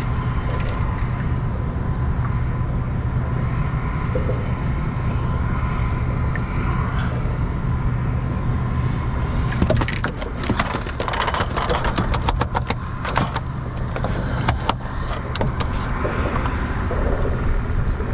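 Steady low rumble, with a rapid run of sharp clicks and knocks about halfway through as a black drum and fishing gear are handled on a fiberglass skiff deck.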